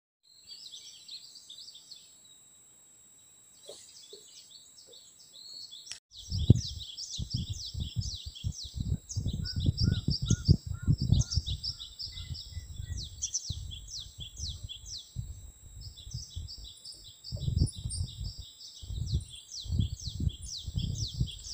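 Small songbirds singing, with many quick repeated chirps and trills. From about six seconds in, irregular low gusts of wind buffet the microphone and are the loudest sound.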